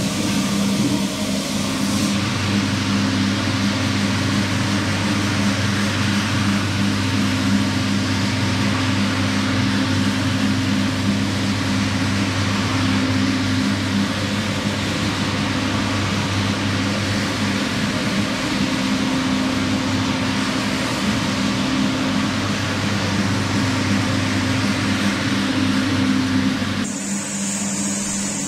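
Motorized rug-cleaning machine running steadily: a motor hum under a loud, dense hiss. The hum drops away about a second before the end, leaving a thinner, higher hiss.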